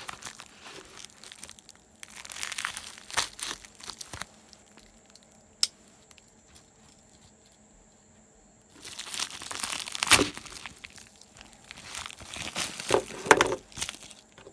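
Mail packaging being opened by hand: crinkling and tearing in irregular bursts, with a quieter pause in the middle.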